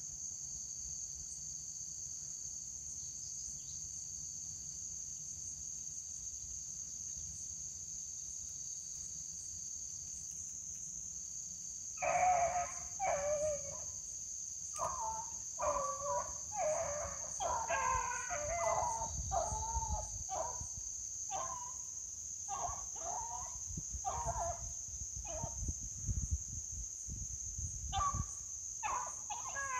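A pack of beagles baying in repeated, wavering howls, starting about twelve seconds in and going on in quick succession: hounds giving voice as they run a rabbit's trail. A steady high insect trilling goes on underneath.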